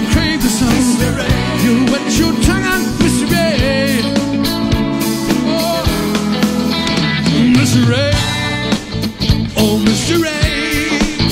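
Live rock band playing: electric guitar and drums, with a man singing; some notes bend and waver.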